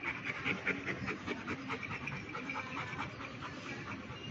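Black Labrador retriever panting quickly, about three to four breaths a second, growing fainter toward the end.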